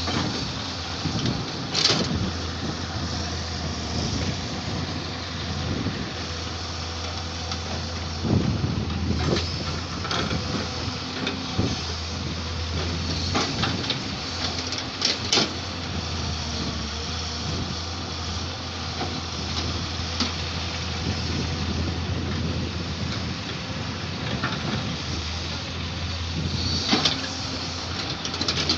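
Samsung excavator's diesel engine running steadily while it digs and loads mud, with intermittent sharp clanks and knocks from the bucket and arm working.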